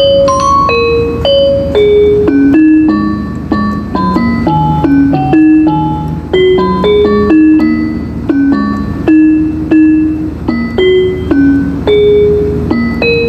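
Instrumental music: a melody of separate, evenly paced notes stepping up and down over lower accompanying notes, with no singing.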